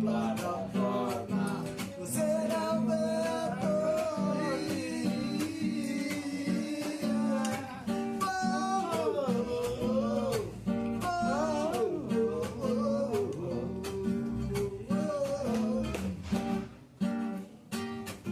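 Acoustic guitar strummed in a steady rhythm while a voice sings a wavering melody over it.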